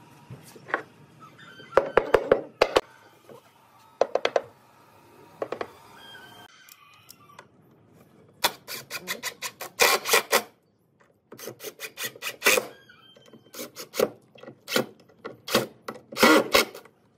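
A few sharp knocks, then from about eight seconds in, six bursts of a cordless impact driver hammering screws into pine boards, each burst lasting half a second to two seconds.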